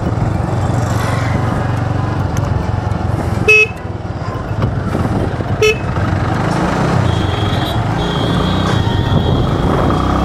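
Motorcycle riding at low speed, its engine running under steady wind noise on a helmet-mounted microphone. Two short vehicle-horn beeps sound, about three and a half and five and a half seconds in.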